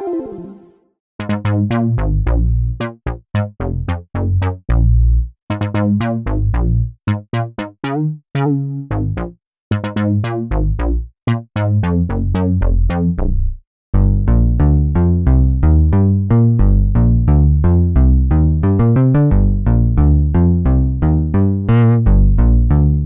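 Omnisphere software-synth bass played on a keyboard: short, separated squelchy notes from an OB-Xa-style patch, then from about fourteen seconds in a continuous run of quick plucked bass notes from a Minimoog-style bass pluck patch.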